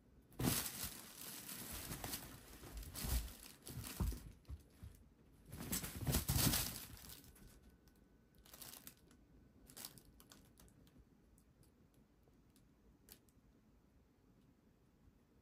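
Fabric cat tunnel rustling and crinkling as cats scramble and scuffle against and inside it, in loud bursts over the first seven seconds, then a few faint scuffs.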